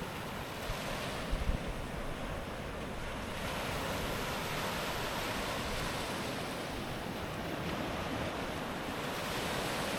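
Ocean surf breaking and washing in steadily, with some wind buffeting the microphone about a second and a half in.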